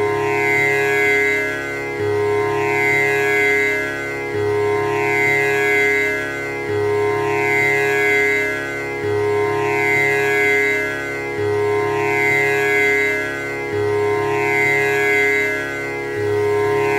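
Tanpura drone: its strings plucked one after another in a steady, unbroken cycle that starts over about every two and a quarter seconds, the notes ringing on into one another.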